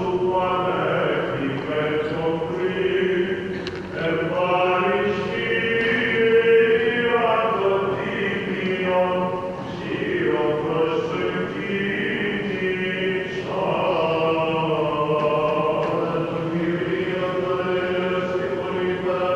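Byzantine chant of an Orthodox service: chanters singing a melody that moves over a steady held drone note (the ison).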